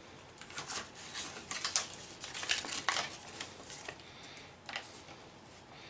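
Rustling and crinkling of a small gift's packaging handled and opened by hand, in short scattered strokes.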